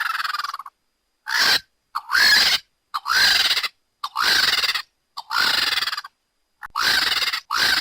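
A bird screeching over and over: about eight shrill, harsh shrieks, each under a second long, with sharp silent gaps between them.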